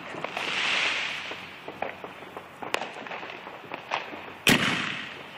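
Fireworks and firecrackers going off: a crackling hiss swells in the first second or so, small pops and cracks are scattered throughout, and one loud bang comes about four and a half seconds in.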